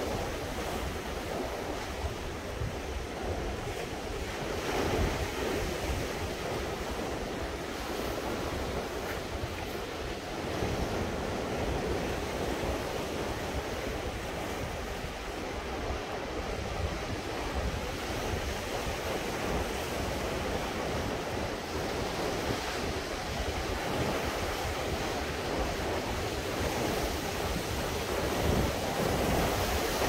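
Sea waves washing in and breaking, swelling every several seconds, with wind buffeting the microphone.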